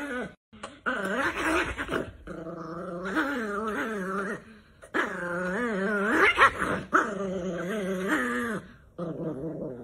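A small chihuahua making a run of about five long, drawn-out vocal calls whose pitch wavers up and down, with short breaks between them.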